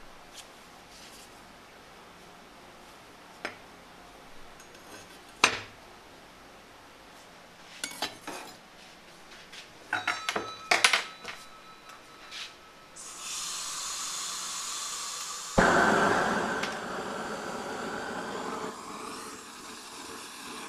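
A few scattered metal clinks and knocks, then a gas torch starts hissing about thirteen seconds in and lights with a sudden whump a couple of seconds later, running on as the steady noise of a gas burner firing into a small forge.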